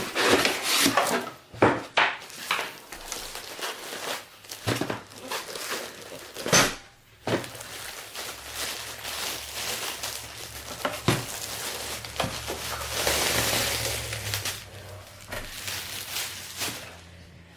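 A laminator being lifted out of its box and unwrapped: cardboard and plastic packaging rustling and crinkling, with repeated knocks and bumps of the machine and box being handled.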